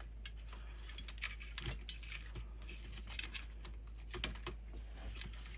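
Irregular light clicks and taps of small plastic and metal parts being handled while a radio-control car's chassis is taken apart by hand.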